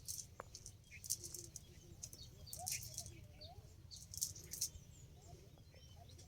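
Small birds chirping, short high chirps coming in clusters several times, over a steady low background rumble.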